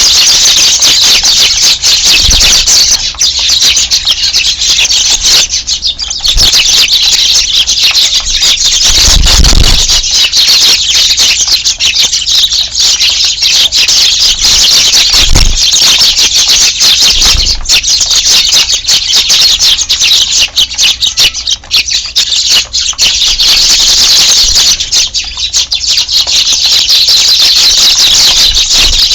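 A large flock of Eurasian tree sparrows chirping all at once, a dense, continuous, high-pitched chatter.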